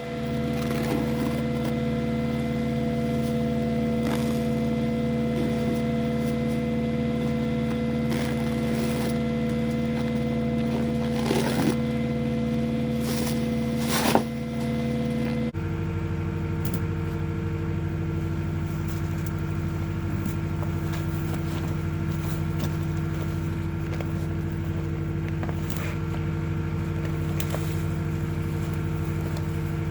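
Skid steer engine running steadily. About halfway through, its note shifts abruptly to a different pitch. A few short knocks sound near the middle.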